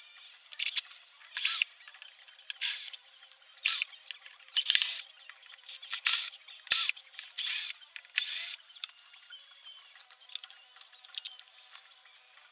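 Scraping strokes of an abrasive hand tool working metal guitar frets, as in fret levelling: about a dozen short, loud scrapes at an uneven pace, then a few fainter ones near the end.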